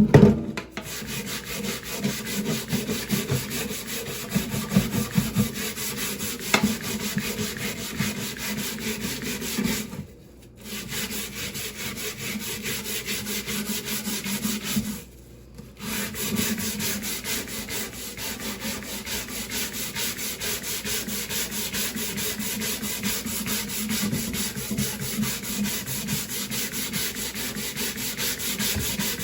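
Rapid back-and-forth scrubbing of a wooden chopping board with salt and lime, a gritty rubbing on the wood that pauses briefly twice, about ten and fifteen seconds in.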